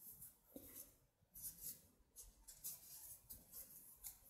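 Near silence, with a few faint, soft rustles of yarn being worked with a metal crochet hook while making double crochet stitches.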